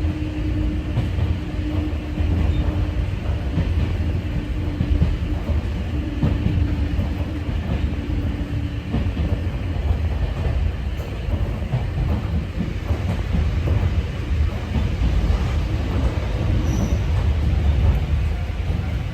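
Sangi Railway 801 series electric train (ex-Seibu 701 series) running, heard from inside the car: a heavy rumble of wheels on the rails with a steady hum that stops about nine seconds in.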